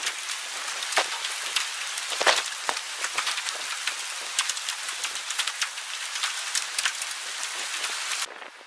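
Hail and heavy rain pelting down from a supercell thunderstorm: a dense steady hiss with many sharp strikes of hailstones; it cuts off suddenly near the end.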